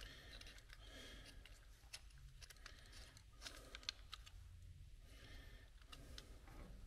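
Near silence with a few faint clicks and light knocks from a small plastic switch panel and its wiring being handled.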